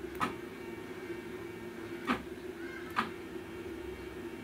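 Stepper motors of a home-built CNC machine humming steadily as the Z axis is jogged, with three short clicks.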